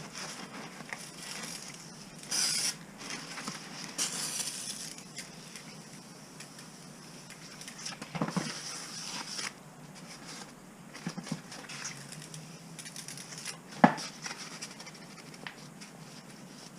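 Scattered clicks and knocks of tools and parts being handled during clutch work, with a sharp knock about 14 seconds in and two short hissing bursts about two and four seconds in.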